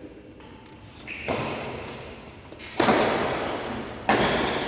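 Badminton rackets striking a shuttlecock in a rally: three sharp hits about a second and a half apart, the first one softer, each ringing on in a large hall.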